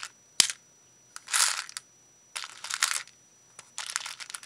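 Beads clicking and rattling against each other and a plastic storage box as they are handled and sorted, in several short bursts with a sharp click about half a second in.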